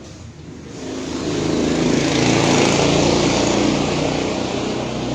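A small engine passing close by, growing louder over the first two seconds and then slowly fading.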